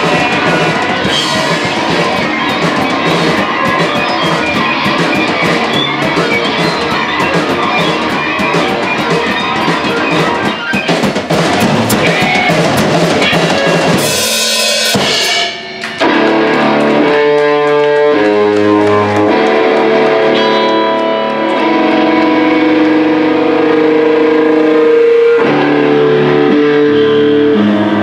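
Live rock band playing loud, with distorted electric guitars, bass guitar and drum kit in a dense, driving wall of sound. About halfway through there is a loud crash and a brief drop-out, after which the guitars ring out in sustained chords over lighter drumming.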